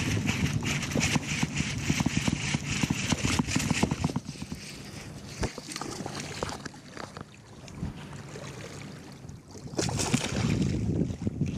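A largemouth bass is fought to the boat on a baitcasting reel, with rapid clicking and rustling from the reel and line. The hooked fish splashes at the surface beside the hull, with a sharp splash about ten seconds in.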